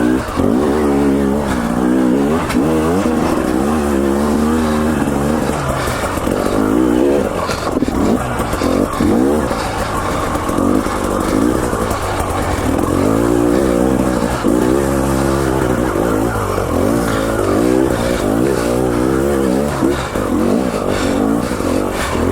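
KTM 300 XC-W TPI's single-cylinder two-stroke engine under way, its pitch rising and falling over and over as the throttle is worked on and off.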